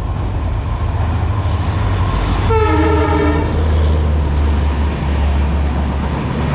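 Indian Railways express train passing at high speed with a steady heavy rumble. A single horn blast comes about two and a half seconds in and lasts about a second.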